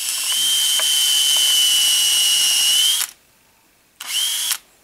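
Cordless drill with a spade bit boring a tap hole into a maple trunk for sap. The motor whines steadily for about three seconds, its pitch rising slightly just before it stops, then gives a second short burst of about half a second near the end.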